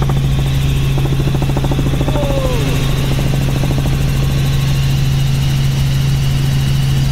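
Helicopter in flight heard from inside the cabin: a loud, steady low drone of engine and rotor.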